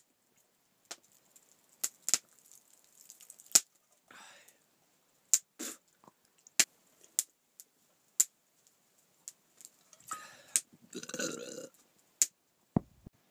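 A man drinking from a mug, with wet mouth clicks and smacks scattered throughout and a short throaty gulp or burp about 11 seconds in.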